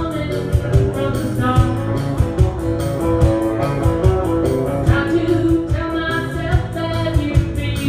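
Small live band playing a song: electric guitar, acoustic guitar and electric bass over a steady beat, with a woman singing lead at the start and again near the end.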